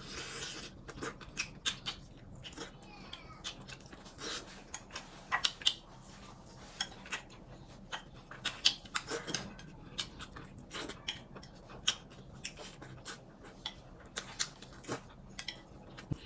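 Chopsticks clicking and scraping against a handheld porcelain plate at irregular intervals, with chewing between the clicks, as a man eats.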